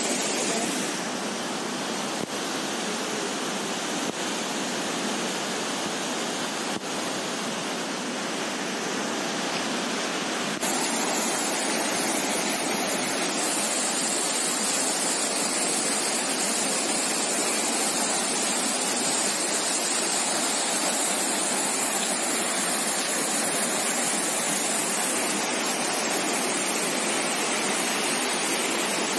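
Floodwater rushing steadily: first shallow overflow running across the ground, then, after a cut about ten seconds in, a little louder, the swollen river in spate rushing past its bank.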